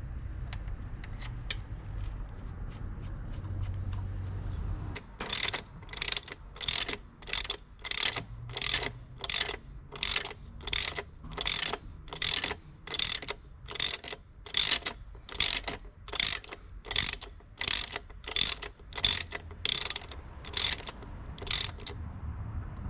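Hand ratchet wrench clicking in steady back-and-forth strokes, about two a second, as a bolt is tightened while the intake air temperature sensor on a 1.8T engine is refitted. The clicking starts about five seconds in and stops shortly before the end.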